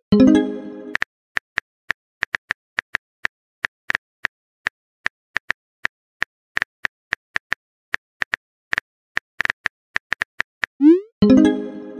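Rapid, irregular tapping clicks of a simulated phone keyboard. A short pitched message pop sounds at the very start, and another, led in by a quick rising swoop, comes near the end.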